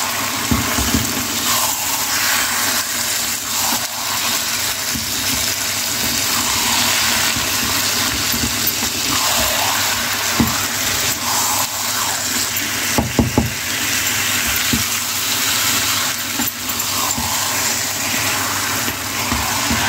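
Marinated chicken sizzling in oil in a nonstick wok with a steady hiss while it is stirred and turned with a wooden spatula, mixing in ginger-garlic paste. A few knocks of the spatula against the pan come through, several close together about two-thirds of the way through.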